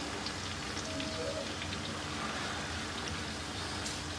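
Hot oil sizzling steadily in a pot of frying chopped onions and tomato paste, with a few faint pops.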